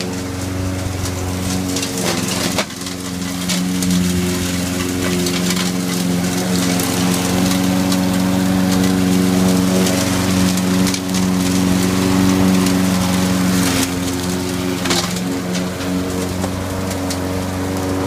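Gas walk-behind mower engine on a homemade remote-controlled mower running steadily at a constant pitch. The blade crackles and snaps as it cuts through twigs and leaf litter, most sharply about two and a half seconds in and again about fifteen seconds in.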